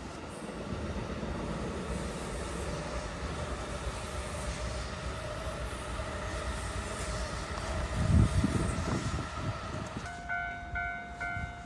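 A train rumbling past on the rails, with a faint whine that rises slowly in pitch and heavy low thumps at its loudest, about eight seconds in. About ten seconds in, the level crossing's electronic warning bell starts its repeated two-tone ding, about one and a half strikes a second.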